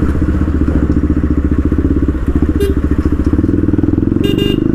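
Bajaj Pulsar NS200's single-cylinder engine running through an aftermarket Akrapovic exhaust with the dB killer removed, giving a loud, fast, even exhaust pulse while the bike is ridden, with a short dip about two seconds in.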